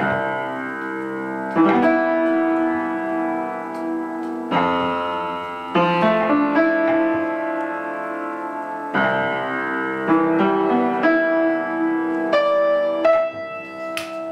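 Piano playing slow, ringing chords, a new chord struck every one to three seconds.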